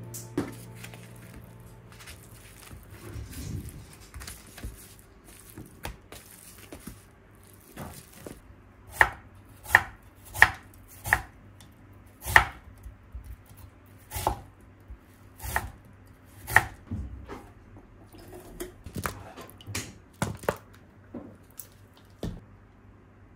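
Kitchen knife slicing an onion on a wooden cutting board: a run of sharp knocks on the board, about one a second. Before it comes a faint hiss of salt and pepper shaken from a shaker onto raw pork, and near the end lighter clinks of a metal measuring spoon in a small glass bowl.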